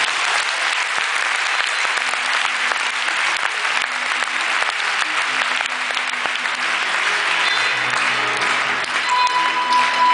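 Audience applauding in an arena, with live orchestra music playing underneath; the clapping thins near the end as the music comes back up.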